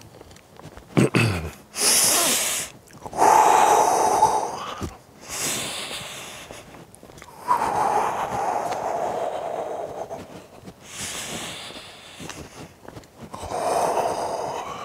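A man sniffing, snorting and blowing his nose in repeated bursts of one to three seconds, some with a honking note.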